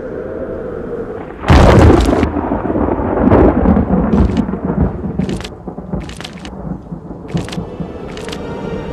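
A loud thunderclap about a second and a half in, followed by fading rumbling and a string of sharp cracks about once a second, over a steady wind-and-surf background.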